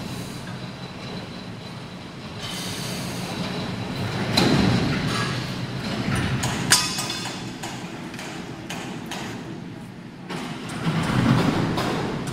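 Heavy machinery rumbling as a long steel box beam is moved, with scattered metallic clicks and one sharp knock about two-thirds of the way through.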